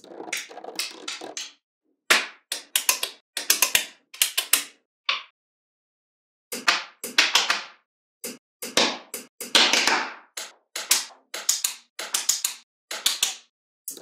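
Small magnetic balls clicking and rattling as they snap together, in quick clusters of clicks separated by short stretches of silence.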